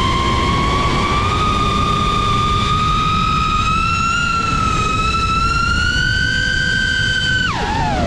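FPV quadcopter's motors whining at one pitch that creeps slowly upward as the throttle rises, then drops sharply near the end as the throttle is cut, over a constant rushing noise.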